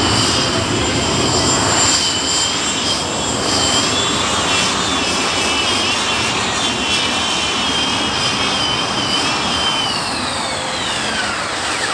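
Heavy modified pulling tractor running flat out under load with a high, wavering whine over a dense roar. Near the end the whine falls steadily in pitch as the power comes off at the end of a pull that falls short of a full pull.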